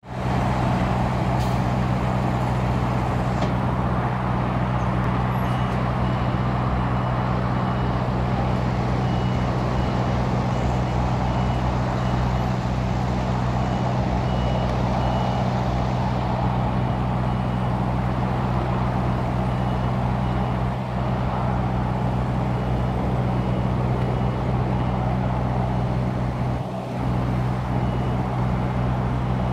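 Scania V8 truck engine running at low revs while the drawbar rig manoeuvres slowly. A reversing alarm beeps in a quick, high, even pattern from about five seconds in, fading for a few seconds midway.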